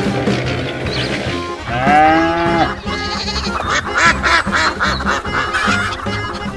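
Background music, with a loud pitched call whose pitch bends about two seconds in, followed by a run of short pitched notes and clicks.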